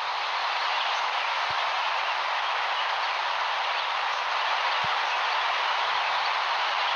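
A steady, even hiss of noise that has faded in just before and holds unchanged, with no voice or music in it.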